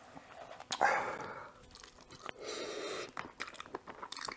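A man eating ramen noodles with a fork from a glass bowl: the fork clicks against the glass a couple of times, among chewing sounds and two short breathy slurps, one about a second in and one near the middle.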